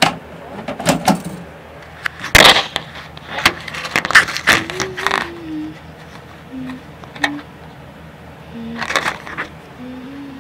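Handling noise from a wire-mesh cage lid being gripped and moved: a series of scrapes and rustles, the loudest about two and a half seconds in.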